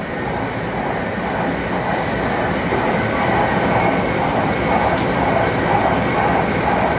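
JR Kyushu 800 series Shinkansen running along the line, heard from the vestibule deck: a steady rumble of wheels and running gear with a faint steady whine, growing gradually louder.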